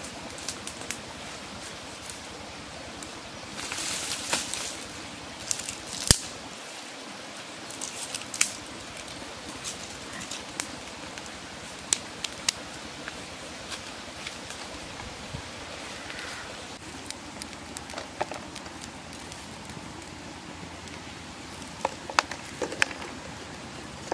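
Wood cooking fire crackling with sparse sharp pops over a steady hiss, with a short rustle about four seconds in.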